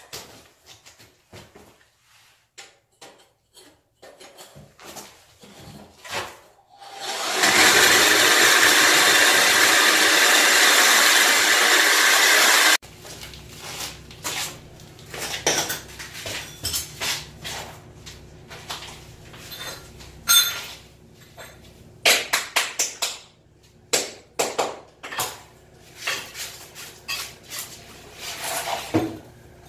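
A power tool runs loud and steady for about six seconds, then cuts off abruptly. After it come scattered sharp strikes of a hammer on a chisel, chipping out ceramic floor tile.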